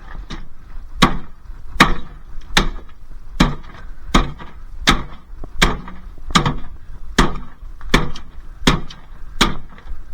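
Repeated hard blows of a hand tool against a dishwasher, about a dozen strikes at a steady pace a little under a second apart, knocking a part loose from the machine.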